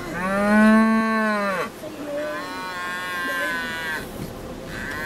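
Cattle mooing: three calls, the first and loudest about a second and a half long, a fainter second call, and a third starting near the end.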